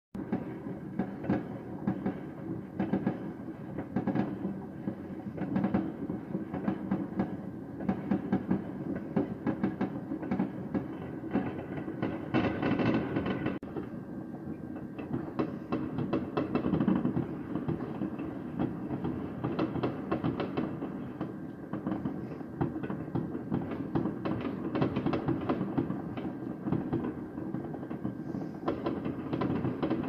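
Fireworks going off in a continuous barrage far away: many overlapping bangs and crackles blending into a steady rumbling crackle with no pause.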